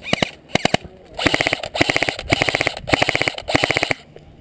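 Airsoft rifle firing short rapid bursts, about two bursts a second, each a quick string of clicking shots; the firing stops about four seconds in.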